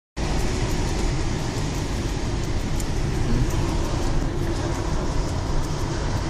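Steady road, tyre and engine noise inside a moving car's cabin, cutting in abruptly just after the start.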